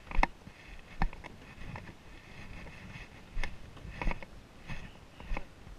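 Footsteps of hikers walking down a dirt trail, with the camera jostling: irregular thuds and scuffs, roughly one a second.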